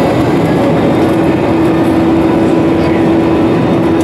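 Airbus A319 jet engines and airflow heard inside the cabin at a window seat: a dense, steady noise, with a steady engine tone that comes in about a second in and holds.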